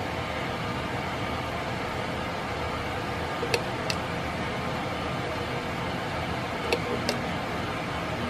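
Dayton Lasko 56-inch industrial ceiling fan running with a steady whir. Its pull-chain switch clicks twice in quick succession, about three and a half seconds in and again near the end.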